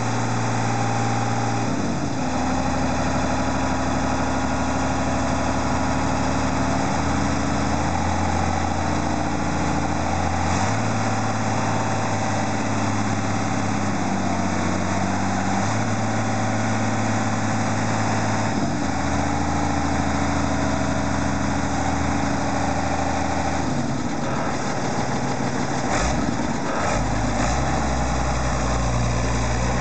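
Mercedes-Benz Unimog U417's diesel engine running while its hydraulics work the front and rear forestry implements, the engine speed shifting in steps every few seconds and holding steady between them.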